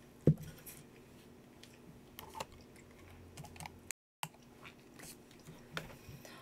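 Small eating and handling noises: one sharp knock just after the start, then scattered faint clicks and chewing sounds. The sound cuts out completely for a moment near the middle.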